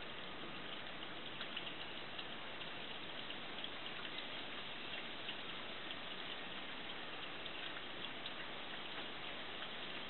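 Steady rain falling: a constant hiss dotted with many small drop taps.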